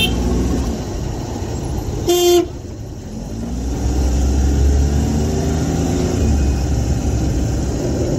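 A vehicle horn sounds one short beep about two seconds in, over the steady low rumble of a car driving along a busy street.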